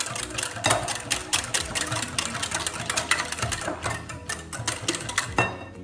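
Wire whisk beating thin liquid pancake batter in a glass bowl: a fast, rhythmic clicking of the whisk against the glass with a wet slosh, stopping about five seconds in.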